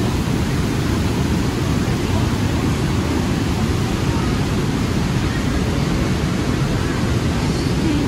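Steady rushing roar of a nearby waterfall, loud and unbroken.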